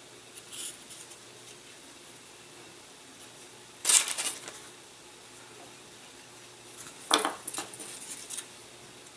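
A glue bottle and small tools handled on a hard workbench: a sharp clatter about four seconds in and another knock about seven seconds in, followed by light rustling as things are moved and set down.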